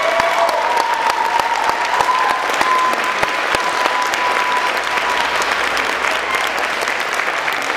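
Theatre audience applauding and cheering at the end of a dance performance, dense clapping throughout. One long high call is held over the clapping until about five seconds in.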